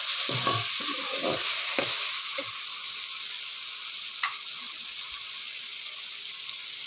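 Onions, whole spices and ginger-garlic-chilli paste sizzling steadily in ghee in a kadai, a splash of water just added. For the first couple of seconds a slotted steel spoon scrapes and knocks against the pan as it stirs, and a single sharp click sounds about four seconds in.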